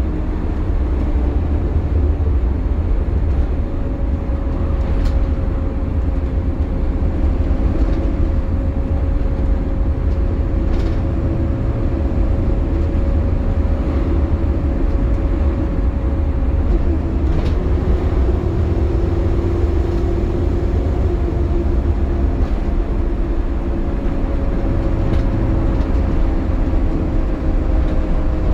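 Optare Solo midibus heard from on board while moving: a steady diesel and road rumble with a sustained whine on top, the "hoovering" of the cooling fan running hard in warm weather. Occasional faint rattling ticks.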